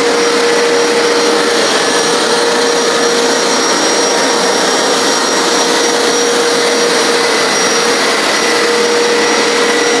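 Hoover PowerScrub XL Pet carpet cleaner running steadily on its first run, its suction motor giving a steady whir with a constant hum and a faint high whine as it is pushed and pulled over carpet.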